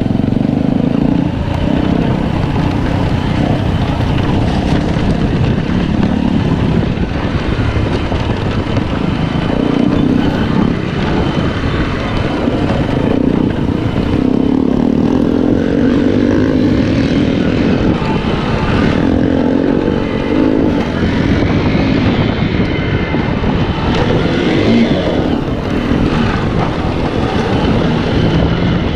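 Small single-cylinder motorcycle engine running while the bike is ridden over an off-road trail, its note shifting up and down with the throttle.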